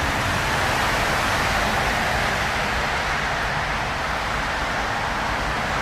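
Steady noise of busy road traffic: a continuous even rush with no single vehicle passes standing out.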